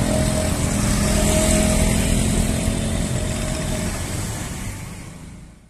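Motorcycles and cars driving over a reopened level crossing, their engines running close by in a steady stream of traffic. The sound fades out near the end.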